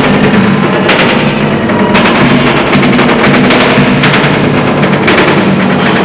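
Loud, fast live drumming in dense rolls, the strikes coming in clumps about a second apart.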